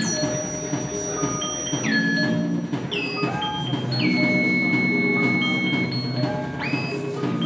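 Electronic music synthesised live in SuperCollider: bright pitched tones enter one after another, each swooping down quickly and then holding, over a low cluster of steady tones. One long held tone sustains from about four seconds in until about six seconds in.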